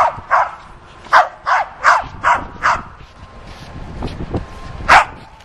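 Dog barking: a quick run of short barks, about seven in the first three seconds, then one more bark near the end.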